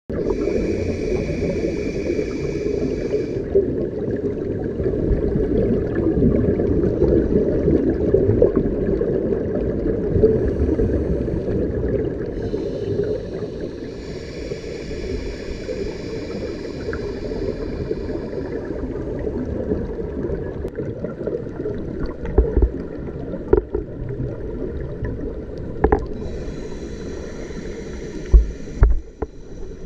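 Scuba regulator breathing heard underwater: a steady low rumble of exhaust bubbles, with three hissing breaths through the regulator, near the start, in the middle and near the end. A few sharp knocks come in the last third.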